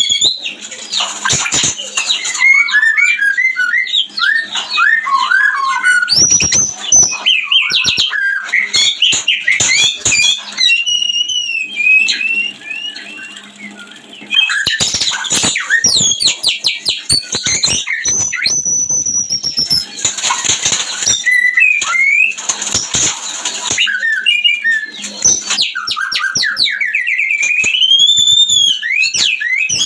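White-rumped shama (murai batu) in breeding condition singing: a long run of loud, varied whistled phrases of rising and falling notes, mixed with quick trills and harsh chatter, with a short lull about halfway through.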